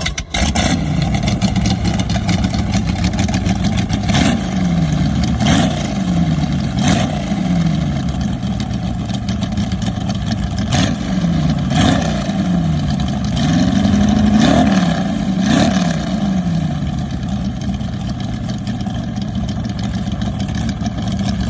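1972 Nordic jet boat's V8 engine starting up, then blipped about seven times in quick sharp revs that each fall back, before settling into a steady idle.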